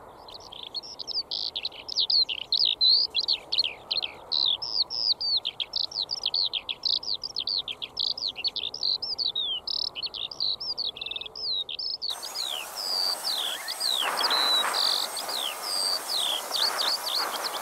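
Songbirds singing: a dense, continuous run of quick, high chirping notes. About twelve seconds in, a steady background hiss joins the birdsong.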